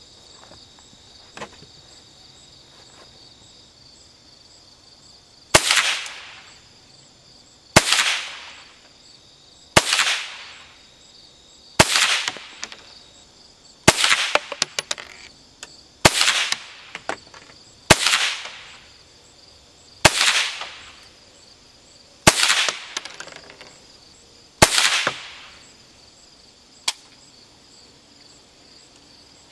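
Ten shots from a Ruger SR22 .22 LR semi-automatic rifle with a 16-inch barrel firing CCI Stinger hyper-velocity rounds, about two seconds apart. Each is a sharp crack with a short ringing tail.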